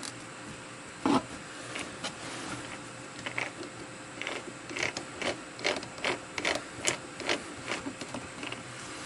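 Scroll of a small 100 mm three-jaw lathe chuck being turned with a T-handle chuck key while the jaws are pushed in to catch the start of the scroll thread. There is a single sharp knock about a second in, then from about three seconds in a run of irregular clicks, two or three a second.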